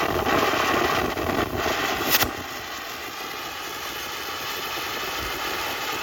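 'Silent Mode' firework fountain spraying with a steady hiss and one sharp crack about two seconds in, after which the hiss carries on more quietly.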